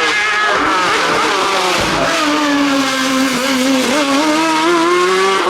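Competition car's engine revving hard, its pitch rising and dropping several times as the driver shifts gear and lifts off.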